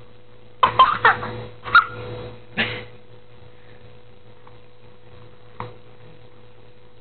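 A baby making short, cough-like vocal noises: a quick cluster of them about half a second in, two more over the next two seconds, and a faint one near the end, over a steady low hum.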